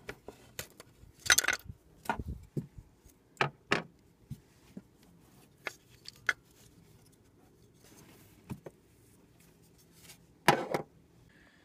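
Scattered sharp clicks and knocks of plastic wiring connectors and small parts being handled at a small-block Chevrolet's HEI distributor as the ignition control module is unplugged and removed. The loudest click comes about a second in and another near the end.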